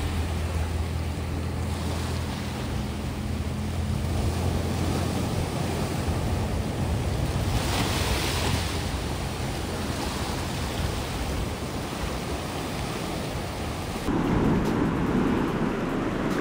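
Sea waves breaking and washing over a rocky shore, with a steady surf rush and one stronger wave surge about halfway through. A low steady hum sits under it for the first few seconds. About two seconds before the end the sound changes to a closer, rougher rushing.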